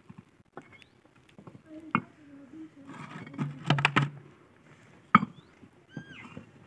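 Clay bricks clunking and scraping against each other as they are lifted off a stack. There are sharp knocks about two seconds in, a cluster near four seconds and another about five seconds in.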